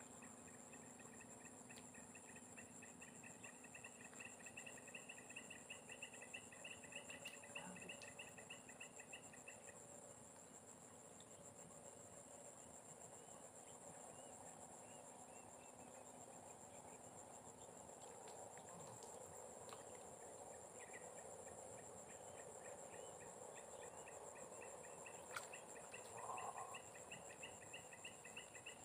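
Faint insect chorus: a steady high-pitched drone, with a pulsing, rapidly repeating trill over it that stops for a few seconds about a third of the way through and then comes back. A faint click near the end.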